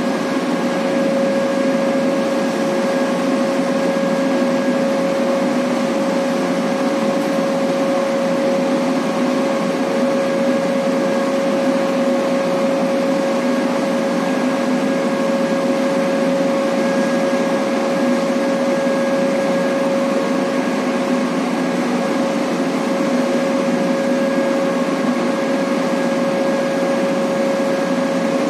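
Jack-up barge machinery running during jack-down: a steady loud hum with a constant whine over it, unchanging throughout.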